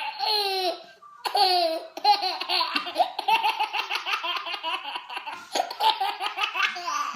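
Baby laughing: two high, wavering squeals of laughter, then a long run of rapid, stuttering belly laughs lasting about five seconds.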